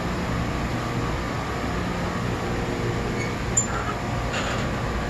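Steady mechanical drone of running machinery with a low hum, and a single sharp click a little over three and a half seconds in.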